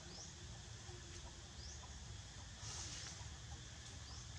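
Faint outdoor ambience with a bird chirping in the background: short, high rising chirps about every second and a half, and a brief hiss about halfway through.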